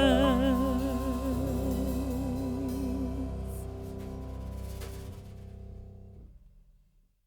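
Background music with a held, wavering note over a low accompaniment, fading out over about six seconds.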